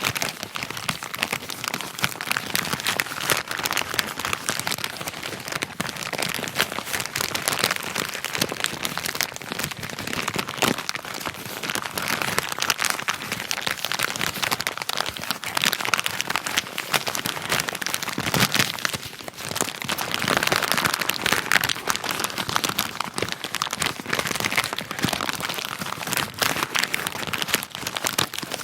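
Wrapping paper being handled: a continuous, dense crinkling and rustling full of small crackles.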